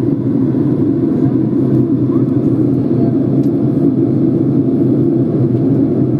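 Boeing 767-200 cabin noise heard from a window seat by the wing during the descent to land: a steady low rumble of the engines and airflow.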